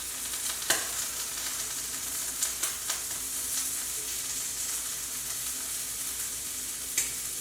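Steady sizzle of food frying in a pan, with a few light clicks of utensils during taco assembly.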